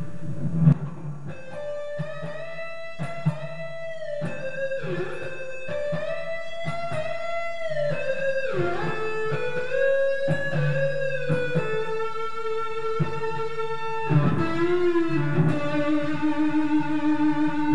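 Fender Player Telecaster electric guitar on its neck pickup, played through an amp in a slow single-note lead line with string bends and long held notes.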